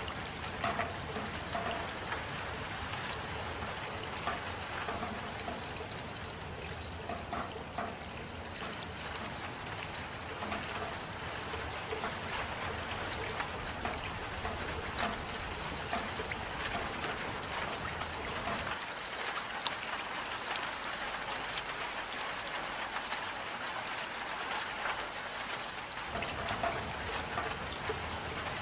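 Steady rain falling, a dense patter of individual drops over an even wash of noise. A low rumble underneath drops away for several seconds past the middle and then returns.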